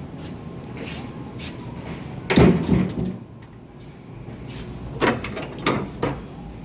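Cardboard baler's metal door being shut: one heavy bang with a low rumble about two seconds in, then a few lighter knocks near the end.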